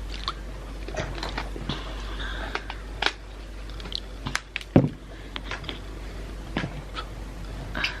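A woman swallowing water close to the microphone, with scattered small clicks of the mouth and throat and one louder throat sound nearly five seconds in.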